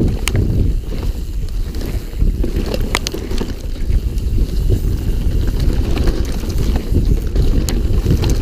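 Wind buffeting an action camera's microphone on a mountain bike riding a dirt trail, over the steady low rumble of the tyres on rough ground, with a few sharp clicks and rattles from the bike.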